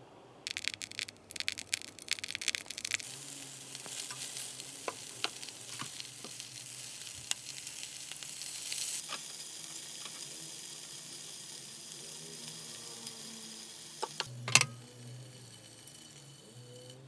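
Enoki mushroom and bacon rolls frying in hot oil in a pan: a burst of sharp crackling as they go in, settling into a steady sizzle with scattered pops. Near the end a loud clank of pans, after which the sizzle is quieter.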